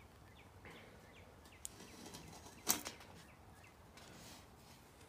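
Rubber jacket of a welder's flat three-wire power cord being cut and pulled apart into its separate wires: faint scraping and rustling, with a small click and then one sharper snap near the middle.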